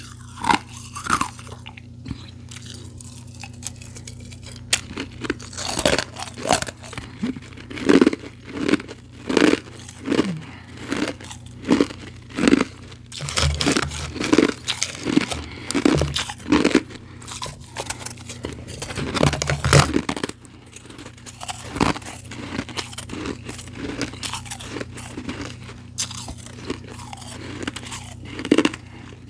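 Close-up chewing of powdery ice, crisp crunches in a steady run of about three chews every two seconds through the middle, sparser at the start and end.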